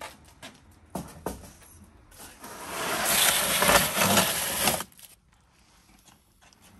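Foil-covered metal baking tray pushed into a wood-fired brick oven and scraped across the oven floor: a few light knocks first, then a grating slide of about two seconds that stops suddenly.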